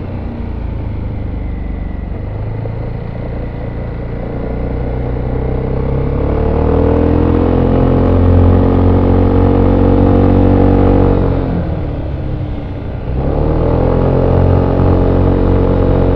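VOGE SR4 MAX maxi-scooter's single-cylinder engine through its stock exhaust, heard on board while riding. It runs lightly at first, then the engine note climbs and strengthens as it accelerates. It eases off about three-quarters of the way through and picks up again near the end.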